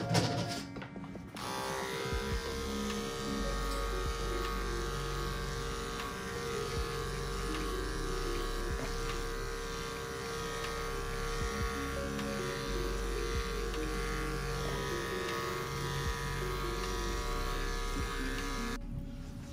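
Corded electric dog clippers buzzing steadily as they shave through a dog's coat, under background music.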